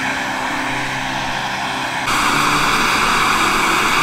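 Portable butane camping stove burner running with a steady rushing hiss, which steps up louder about two seconds in.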